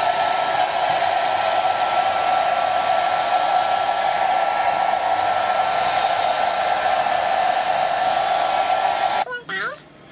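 Hand-held hair dryer running steadily with a thin whine over the rush of air, blowing on a roller-set synthetic wig to dry it. It is switched off about nine seconds in.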